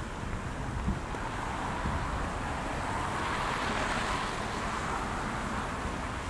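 Street traffic: a vehicle passing, its tyre and engine noise swelling to a peak about three to four seconds in and then easing off, over wind rumbling on the microphone.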